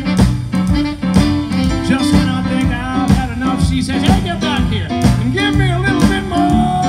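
Live blues band playing a steady beat, with saxophones, guitars, keyboard and drums.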